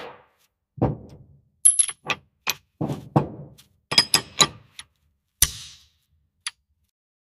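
Metal clinks and clicks of a bolt and socket wrench being handled against a cast-iron bracket on a workbench: an irregular run of sharp taps, a few with a short ringing tone, and a couple of dull thuds.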